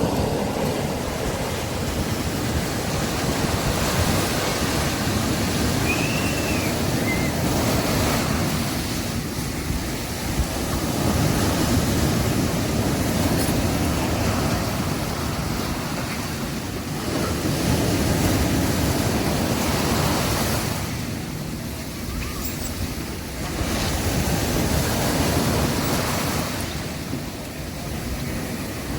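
Sea waves breaking and washing up on a beach: a continuous surf wash that swells and eases every few seconds.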